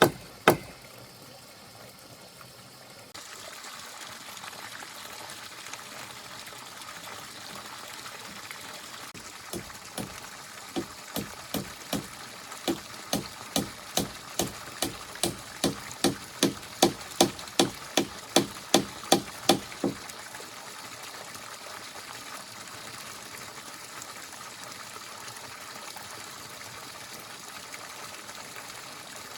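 A run of about twenty sharp blows, roughly two a second, quickening and growing louder, then stopping. Behind them is a steady rushing hiss like running water.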